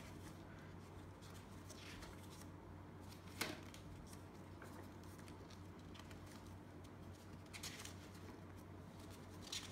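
Paper sticker sheets being turned in a two-ring binder: soft page rustles, with one sharper flick about three seconds in and two more toward the end, over a faint low hum.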